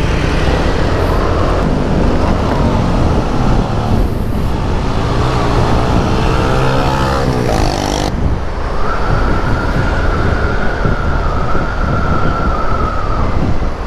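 Motorcycle engine running under way with road and wind noise; its pitch rises as it accelerates from about five to seven seconds in. A steady high whine holds through the second half.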